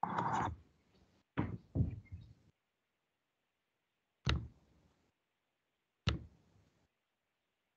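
A handful of sudden knocks and taps, five in all: a longer, rougher one right at the start, two close together about a second and a half in, then single sharp ones about four and about six seconds in.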